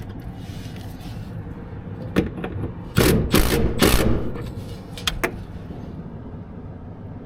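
Metal clunks and scraping as a replacement compressor is set down onto its rubber mounting feet inside a rooftop AC unit, with a burst of loud clattering hits in the middle, over a steady low hum.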